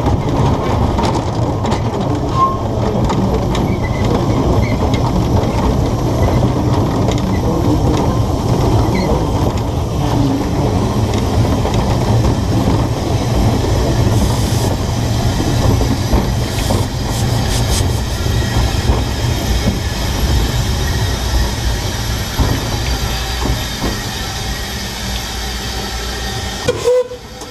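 Two-foot gauge steam locomotive under way, heard from its footplate: a loud, steady rumble of the running engine and wheels on the track. The level drops away suddenly just before the end.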